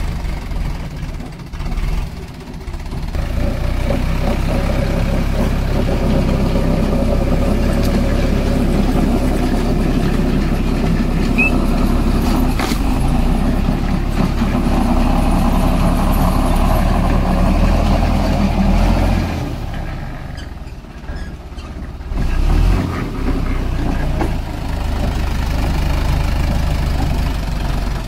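Sonalika DI 750 RX tractor's diesel engine running steadily under load. It eases off for a couple of seconds about two-thirds of the way through, then picks up again with a short rise.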